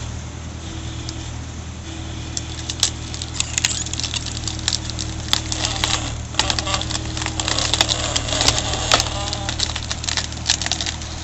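Motor-driven wood-processing machine running with a steady low hum, while wood cracks and splinters in many sharp, irregular snaps that grow busier a few seconds in.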